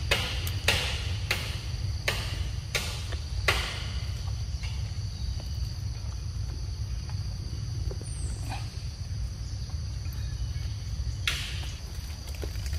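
Forest ambience: a steady high insect drone over a low rumble. A run of sharp, evenly spaced ticks, about one and a half a second, fills the first three and a half seconds, and a short hissing burst comes near the end.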